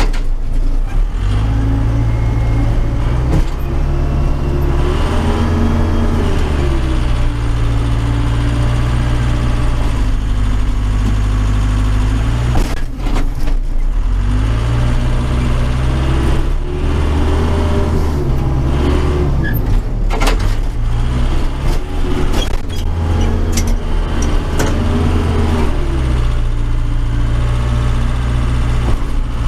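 Case 580 Super K backhoe's diesel engine heard from inside the cab, its speed rising and falling several times as the loader pushes snow. Short knocks and clanks come from the machine now and then.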